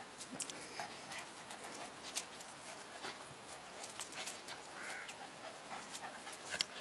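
Soft scuffling of two small dogs play-wrestling on gravelly ground, made up of scattered light clicks and brief faint sounds.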